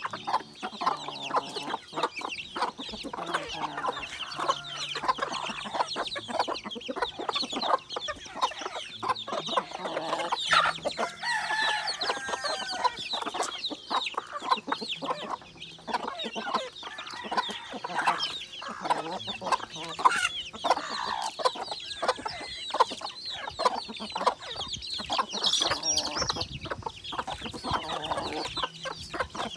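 A flock of native chickens clucking as they feed. Many short sharp clicks run all through it, the beaks pecking at feed on the dirt.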